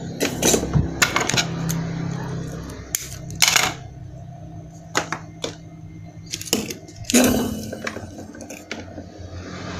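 About ten scattered sharp clicks and knocks as a small perforated circuit board with soldered components is picked up, turned over and handled on a tabletop, over a low steady hum.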